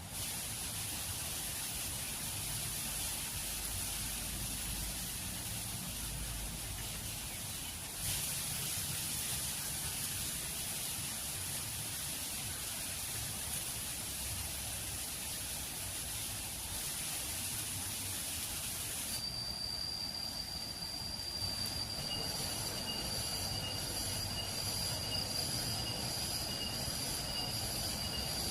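Forest insects droning with a steady, high-pitched buzz. The sound changes abruptly twice, and later becomes a steady high whine with rapid pulsing chirps.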